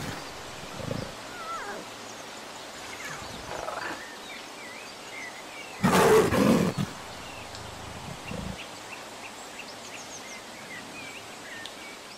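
Big cat growling a few times, then one loud roar about six seconds in, lasting about a second, with faint high chirps in the background.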